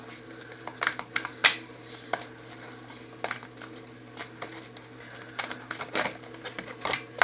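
A deck of oracle cards being shuffled and handled: irregular light clicks and flicks of card stock, over a steady low hum.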